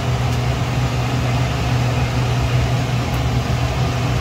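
Steady low hum with an even hiss over it, unbroken throughout: onions and ginger-garlic paste frying in oil in the biryani pot, over a constant machine-like drone.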